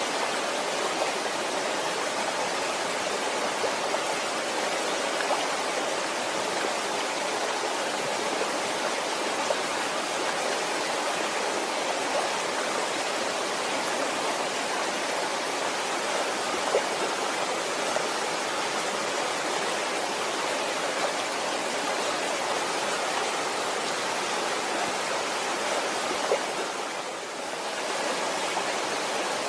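Waterfall rushing in a steady, dense roar of falling water that dips briefly about 27 seconds in.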